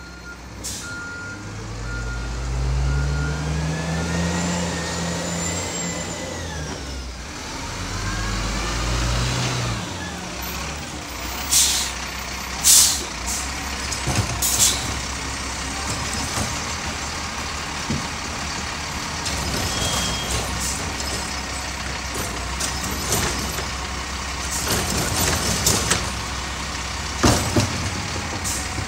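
Diesel garbage truck at work: reversing beeps for the first couple of seconds, then the engine revs up and falls back twice with a rising whine. After that come a few sudden sharp hisses and bangs over the steady engine, typical of air brakes and bins being handled.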